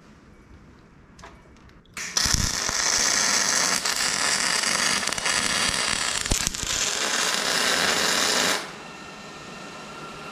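Arc welding on steel: the welding arc runs with a steady loud hiss for about six seconds, starting about two seconds in and cutting off suddenly. A few light clicks come in the quiet before it.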